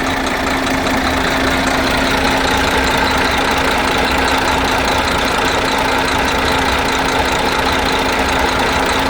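DAF 95 truck's straight-six diesel engine idling steadily after a full overhaul.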